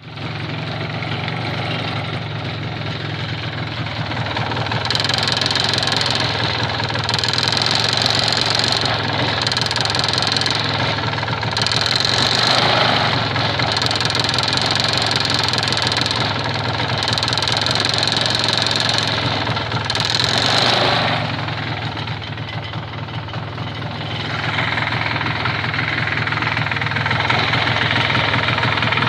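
1983 MZ ETZ 250's single-cylinder two-stroke engine running and revved up several times, with a knock that the owner says means something is wrong in the engine.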